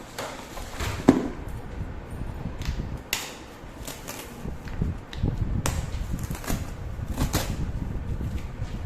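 Cardboard ceiling-fan box being handled and opened: irregular rustling, scraping and knocking, the loudest a sharp snap about a second in.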